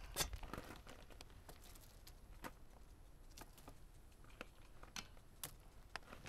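Sparse, faint clicks and taps from hand work at the final drive of a Kubota KX040-4 mini excavator, as a gear-oil pump hose is fitted to the fill port, the sharpest click just after the start.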